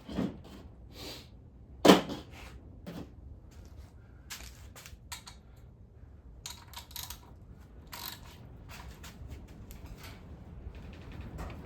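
Metal tools and engine parts clinking and knocking during an engine teardown: a sharp knock near the start, a louder one about two seconds in, then a run of lighter clicks and taps.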